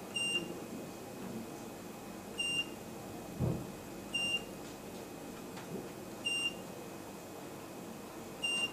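Keypad beeper of a Grandway FHM2A02 optical multimeter: five short, high beeps about two seconds apart, each one confirming a press of the wavelength key that steps the light source's wavelength. A soft knock about halfway through.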